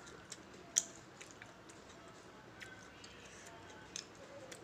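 Close-miked chewing: scattered wet mouth clicks and smacks of someone eating, the sharpest one just under a second in.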